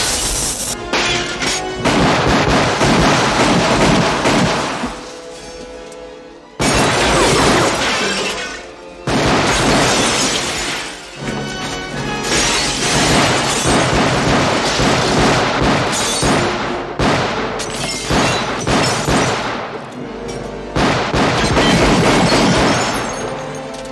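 Action-film shootout soundtrack: repeated pistol shots and glass shattering, with booms, mixed over a loud music score. The sound drops back briefly about five seconds in and again about eight seconds in.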